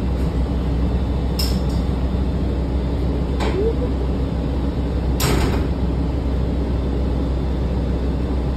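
Inside a city bus with its engine running: a steady low rumble, broken by a few short clicks and creaks from the bus's fittings and a brief hiss about five seconds in.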